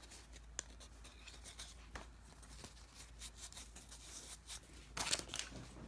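Faint handling of a freshly opened pack of football trading cards: soft clicks and rubs as cards are slid and flipped, with a louder rustle about five seconds in.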